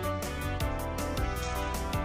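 Background music: held instrumental notes over a steady beat of about four strokes a second.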